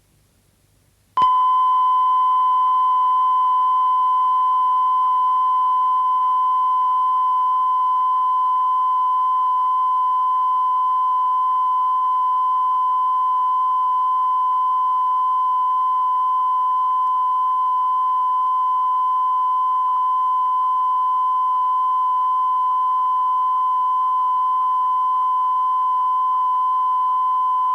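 Broadcast test tone at a TV station's closedown, marking the end of the day's transmission: one steady, unchanging pure tone that switches on abruptly about a second in, after a moment of faint hiss.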